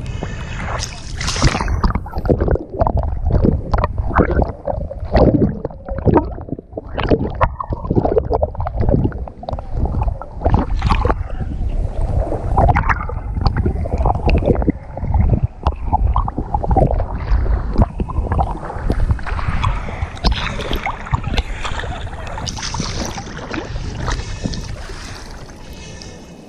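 Seawater sloshing and splashing against an action camera at the surface, with irregular knocks and surges and a heavy low rumble. For stretches in the first half the sound goes dull and muffled as the camera dips under, then turns brighter again.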